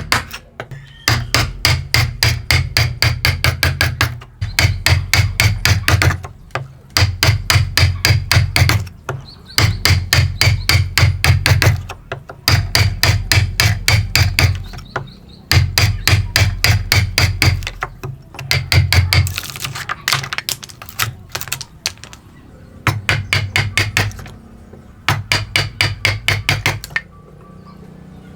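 A hammer rapidly tapping a chisel into wood to hand-cut a joint. It comes in quick runs of about six strikes a second, each run a couple of seconds long, separated by short pauses.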